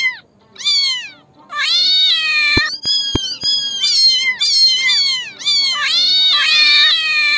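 Cat meowing over and over, high-pitched calls falling in pitch, one short one first and then meows that overlap almost without a break from about a second and a half in. Two sharp clicks come near the middle.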